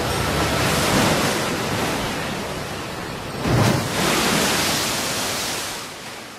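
Sea waves washing in and breaking, surging twice, then fading out near the end.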